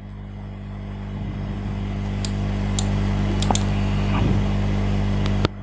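A steady low hum, louder over the first two seconds, with a few sharp computer mouse clicks as dialog buttons are pressed. The hum drops away suddenly near the end.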